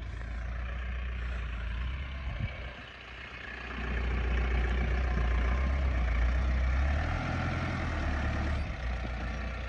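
Mahindra Bolero Camper pickup's four-cylinder diesel engine running as the truck drives slowly over rough dirt in two-wheel drive. The engine dips briefly about 3 seconds in, then runs louder from about 4 seconds in as it is worked harder.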